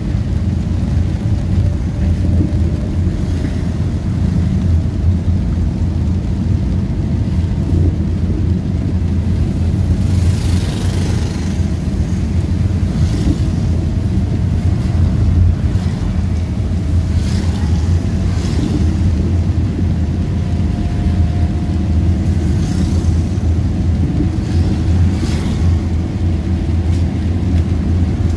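Car driving on a rain-soaked road, heard from inside the cabin: a steady low rumble of engine and tyres, with a few brief hissing swells as other vehicles pass on the wet road.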